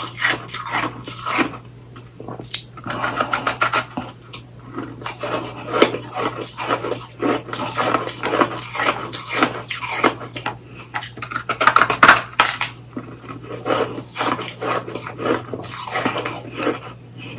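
Shaved ice packed onto a popsicle stick being bitten and chewed close to the microphone: loud, rapid crunching in irregular bursts.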